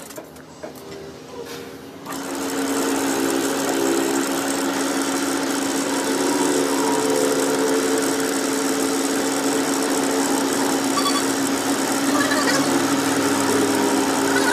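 Electric workshop machine motor running with a steady hum, getting up to speed about two seconds in.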